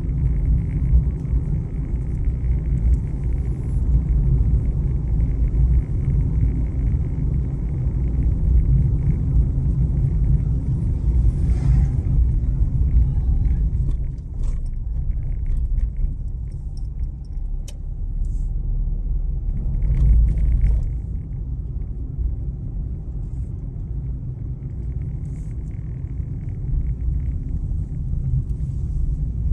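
A car driving along a town street: a steady low rumble of engine and tyres on the road that swells briefly about two-thirds of the way in.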